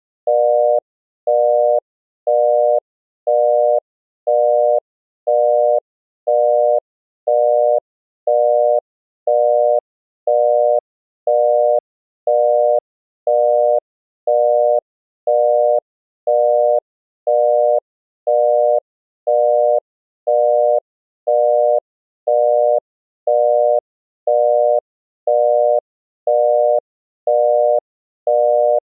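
Older US telephone busy tone: a 600 Hz tone, amplitude-modulated by 120 Hz so it sounds buzzy, beeping half a second on and half a second off. It signals that the called line is busy.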